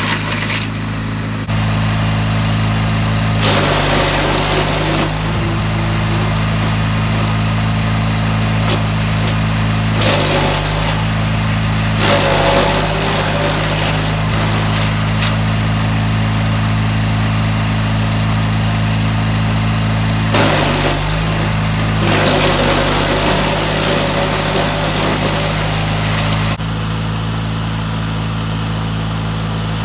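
DR wood chipper's gas engine running steadily, with branches fed through several times. Each time the fresh blades chip with a burst of noise lasting a second or two, and the engine briefly bogs down under the load.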